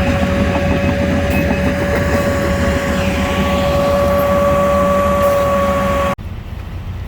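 Heavy construction machinery engine running steadily, with a constant high whine over its low rumble; the sound cuts off abruptly about six seconds in.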